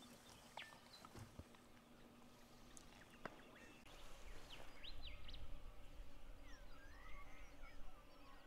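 Faint bush ambience: a few scattered bird chirps and short calls. A low rumble swells in about halfway through and fades near the end.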